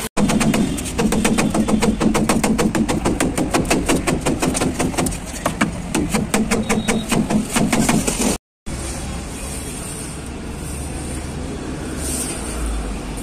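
Rapid hammer blows on the steel sheet of a truck's dumper body, about six or seven strikes a second with the metal ringing under them. They stop suddenly about eight seconds in, and a steady low rumbling noise follows.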